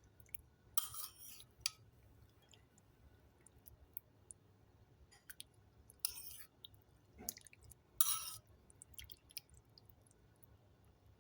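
Someone eating: a few short wet slurps and chewing sounds, spaced several seconds apart.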